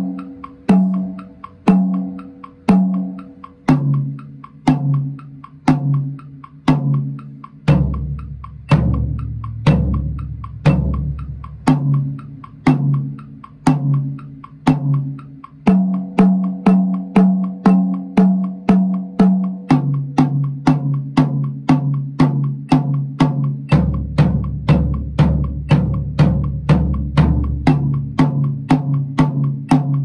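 Acoustic drum kit played with alternating single strokes at tempo 60, one stroke a second at first, then doubling to about two strokes a second about halfway through. The strokes move from drum to drum, stepping down in pitch from the higher toms to the deep floor tom and then starting again.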